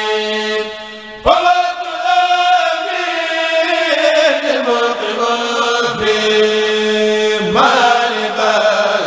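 A Mouride kourel of male voices chanting a khassida (Arabic devotional poem) into microphones, drawing out long held notes. A new phrase comes in about a second in and again near the end.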